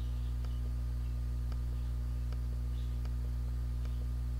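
Steady low electrical hum with a stack of even overtones, with faint short ticks about twice a second.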